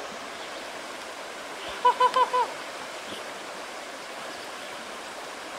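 Steady rush of flowing creek water. A voice calls out briefly about two seconds in.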